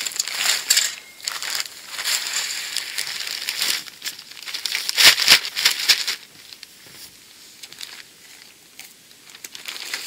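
Deep powdery snow crunching as a person handles and packs it and steps through it: a dense run of crunches for the first six seconds, loudest about five seconds in, then only a few quieter crunches.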